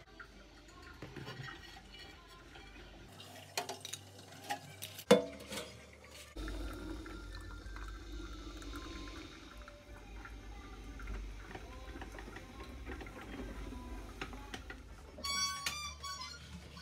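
A few clicks and one sharp knock, then a drip coffee maker brewing: water gurgling and hissing steadily through the machine. Light background music with a reedy, harmonica-like melody comes in near the end.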